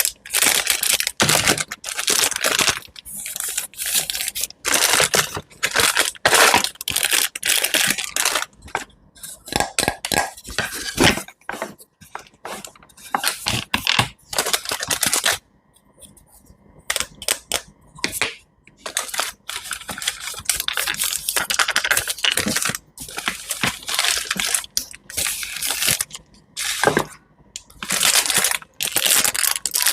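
Knife cutting into crisp fruits and vegetables, a run of irregular crunching and slicing strokes with a short pause about halfway through.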